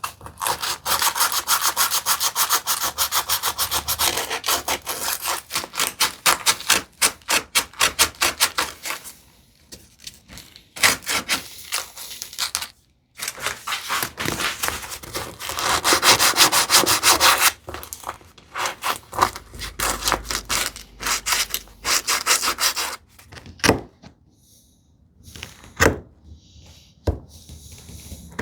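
Sandpaper rubbing on wood by hand in quick back-and-forth strokes, in several long bouts with short pauses between them, while smoothing a wooden tambour door track. A few separate knocks near the end.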